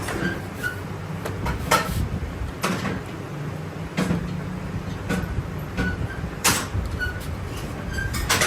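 Irregular knocks and clanks of metal being worked, about one every second or so, over a low steady machine hum.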